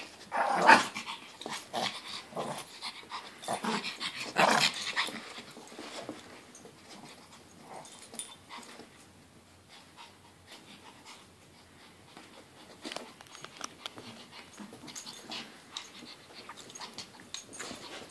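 Two small dogs play-fighting, with loud bursts of growling in the first five seconds, the loudest about a second in, then quieter scuffling sounds.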